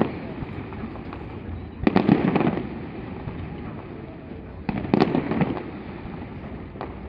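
Aerial fireworks bursting: two clusters of bangs and crackling, one about two seconds in and one about five seconds in, with scattered smaller cracks between.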